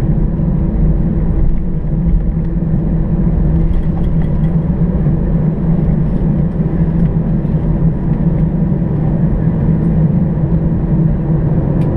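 Cabin noise of an Airbus A319 taxiing onto the runway with its engines at taxi power: a steady low drone with a constant hum, heard through the fuselage by the window over the wing.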